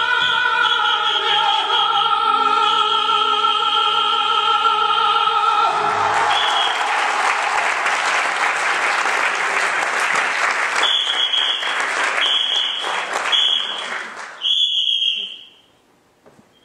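Operatic music plays and stops about six seconds in, giving way to audience applause. Over the clapping come four short, high whistle blasts, the last one a little longer, and the applause dies away just after.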